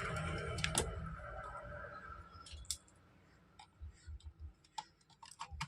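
Scattered small clicks and taps from hands working an amplifier's controls and wiring, after a low hum that fades over the first two seconds. The connected speaker stays silent: this channel of the PAM4440 amplifier gives no output.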